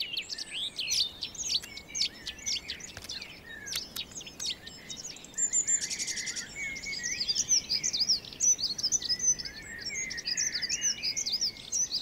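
Several small songbirds singing at once, a busy mix of overlapping whistles, chirps and short phrases, growing busier about halfway through, with a rapid trill around six seconds in.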